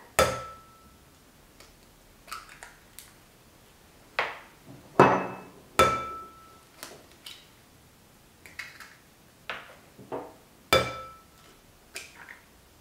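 Eggs cracked one after another against the rim of a porcelain mixing bowl. There are sharp knocks, three of which leave the bowl ringing briefly with a clear tone, and softer crackling of shells being pulled apart in between.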